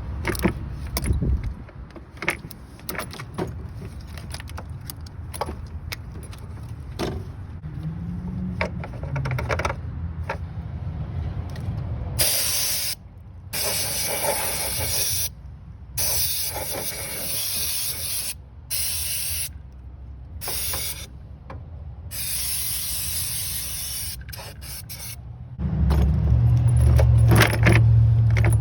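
Scattered clicks and clatter of hand tools, then a hiss from a spray can in several bursts with short pauses between them. Near the end a strong, low, steady rumble begins.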